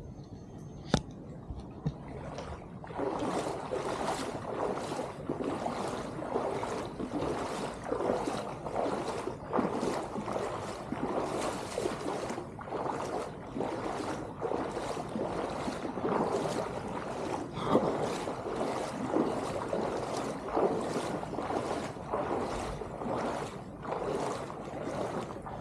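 Footsteps splashing through shallow floodwater, about two steps a second, starting a couple of seconds in and keeping an even pace.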